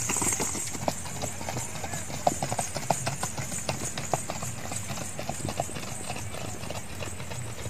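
Hoofbeats of two horses walking on hard, dry sandy ground: an irregular, overlapping clip-clop.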